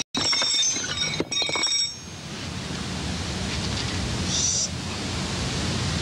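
Steady outdoor background hiss, cut out briefly at the very start, with high clear tones over the first two seconds and a short high chirp about four seconds in.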